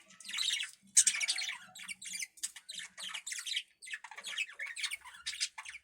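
Budgerigar giving a quick string of short, high-pitched squawks and chirps, one after another, the loudest about a second in.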